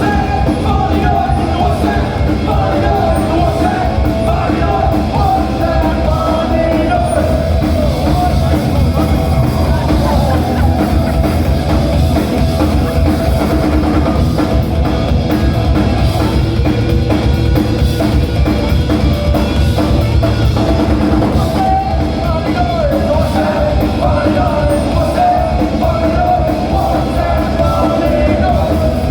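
Punk rock band playing live, with a drum kit and a sung vocal line over the band.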